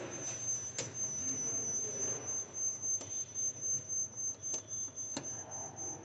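Quiet background with a steady high-pitched whine and a few faint, scattered clicks of multimeter probe tips touching terminal-block screws in an electrical control panel.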